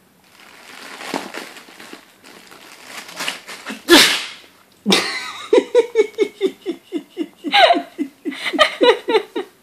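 A man's single loud sneeze about four seconds in, then a long run of fast, rhythmic laughter.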